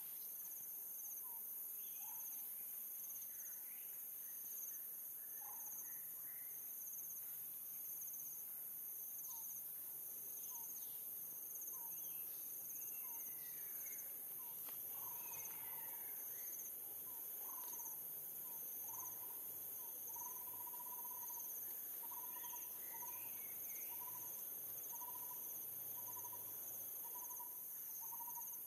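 Insects drone steadily and high, with a second insect pulsing about one and a half times a second. Over them a short call repeats, settling into about once a second from around two-thirds of the way in, with a few scattered chirping calls in between.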